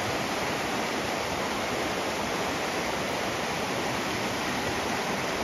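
Mountain river rushing, a steady even rush of water.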